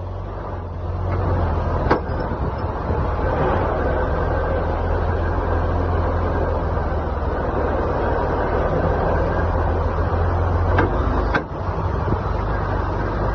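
Semi-truck drivetrain running with a steady low drone that grows louder about a second in, with a few sharp knocks, one about two seconds in and two close together near the end. It is the knocking of a worn-out rear differential on its last leg, heard under throttle.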